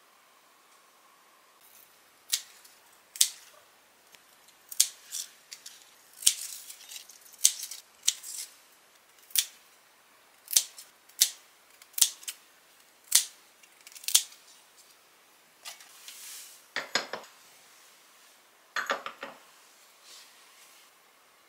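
Scissors snipping leaves off a potted spinach plant: about a dozen sharp, separate snips over some twelve seconds. Near the end come two duller, longer sounds.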